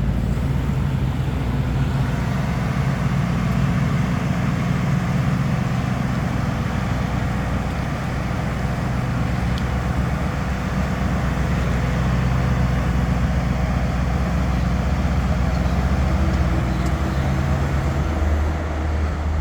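Audi SQ7's 4.0-litre twin-turbo V8 idling steadily through its sport exhaust, with a deep, even rumble and no revs. The note shifts slightly lower near the end.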